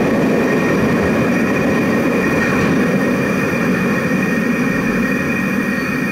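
London Underground battery locomotives L46 and L45 running away into the tube tunnel: a steady low rumble that slowly fades, with a steady high whine over it.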